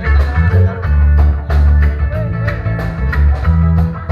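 Reggae band playing an instrumental passage: a heavy bass line under short, choppy guitar strums.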